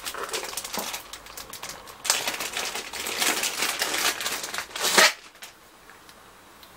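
Plastic wrapping crinkling and rustling in quick irregular bursts as a microphone is unwrapped by hand, ending in one loud rustle about five seconds in.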